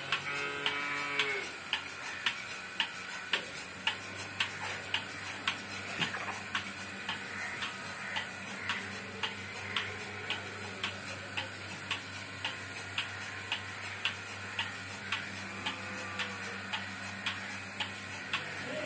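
Double-bucket milking machine's pulsators clicking steadily, about two clicks a second, over the steady low hum of the vacuum pump. A cow moos briefly at the start and faintly again near the end.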